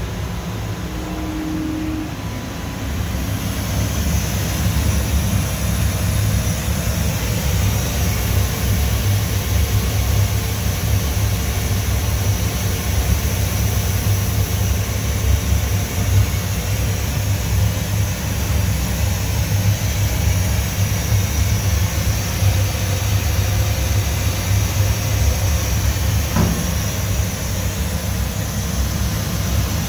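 Steady machinery hum with a hiss from a running graphite machining cell, the Hwacheon G1 machining center and its robot workpiece loader. The hiss grows louder about three seconds in, and a single sharp click comes near the end.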